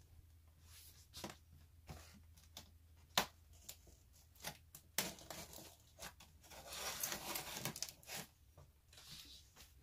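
A knife slitting the packing tape on a cardboard box: a run of short scrapes and snaps, sharper cracks about three and five seconds in, and a longer rasping tear around seven seconds.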